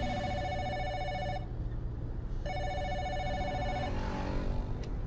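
Mobile phone ringing with a trilling, old-style telephone ring: two rings of about a second and a half each, a second apart, over the low rumble of a car cabin.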